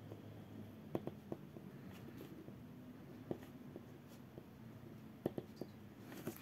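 Pen writing on a paper worksheet: faint scratching strokes with a few light clicks and taps of the pen tip on the page.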